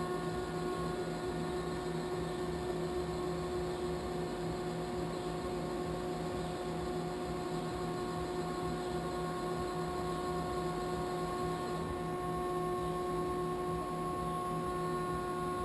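Kitamura T-20 CNC vertical machining center running while it homes its axes: a steady hum with several whining tones layered on top. One of the tones drops out near the end, around the time the machine reaches home.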